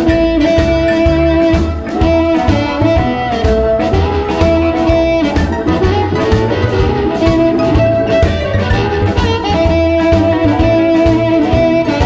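Electric blues instrumental: harmonica and electric guitar playing long held notes over a bass line and a steady drum beat.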